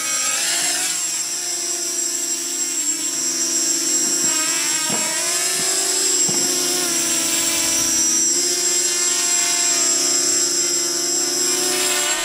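Small 280mm racing quadcopter's four electric motors and propellers buzzing in low flight, the pitch wavering up and down as the throttle changes.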